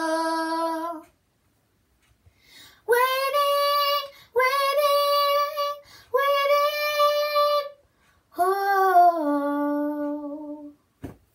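A young girl singing alone without accompaniment: a held note ends about a second in, and after a pause come four long sung phrases. The last phrase falls in pitch and fades out, and there is a faint click near the end.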